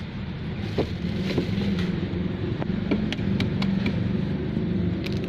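A steady low mechanical hum, with a few short sharp clicks and cracks of boiled eggshells being broken apart by hand.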